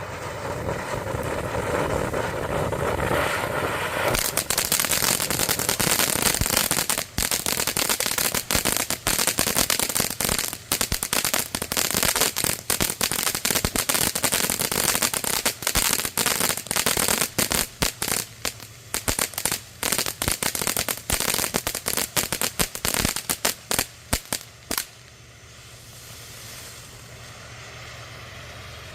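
Wenda Snow Cone firework fountain burning. A spraying hiss builds for the first few seconds, then dense crackling takes over for about twenty seconds. The crackles thin out and it falls back to a fainter hiss near the end.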